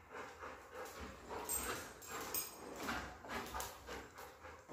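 A golden retriever whimpering softly in short, scattered sounds, excited at a family member coming home.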